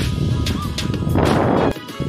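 Background music with a steady beat. About a second in, a loud burst of rushing noise joins it and cuts off suddenly.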